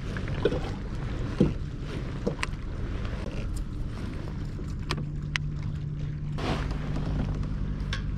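Water lapping against a kayak hull with wind on the microphone, broken by a few sharp clicks from the handling of a baitcasting rod and reel. A low, steady hum joins about five seconds in.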